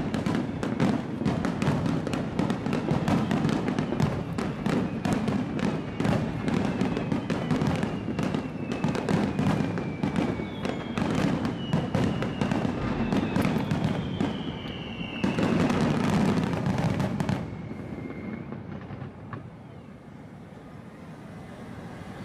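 Finale of an aerial fireworks display: shells bursting in quick, dense succession with booms and crackle, a last loud flurry about fifteen seconds in, then the bursts die away.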